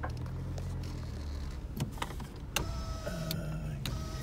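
A car's electric window motor running for about a second and a half, starting with a click. It is followed by a few sharp clicks and knocks inside the car.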